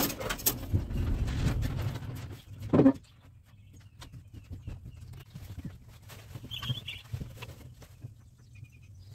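Footsteps and handling knocks on the wooden floor of a plywood-walled trailer workshop, busiest in the first three seconds with one loud short sound near the end of them, then lighter scattered taps.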